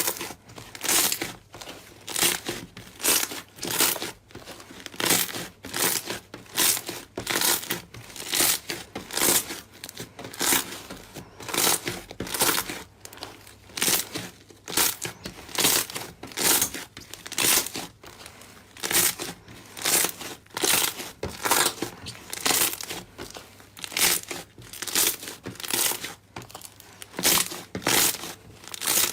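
Slime being squeezed and kneaded by hand, making repeated crackly, crinkly squishes about two a second.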